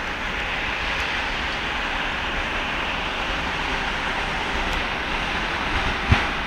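A pair of ChS2T six-axle DC electric locomotives passing with a train, giving a steady rushing noise. One sharp knock comes near the end.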